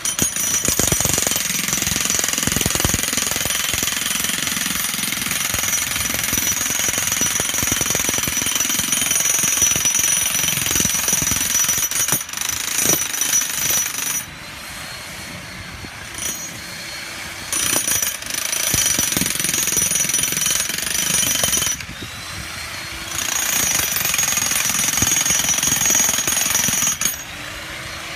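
Corded electric demolition hammer driving a steel bearing pin through a Diamond Pier precast concrete head into the ground. It hammers in long runs with a steady high motor whine, stopping briefly about halfway, again about three-quarters in, and near the end.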